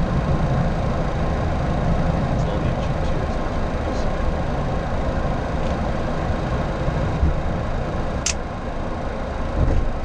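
Steady flight-deck noise of a Boeing 737-800 taxiing, its CFM56 engines running at low power, with a short high click about eight seconds in.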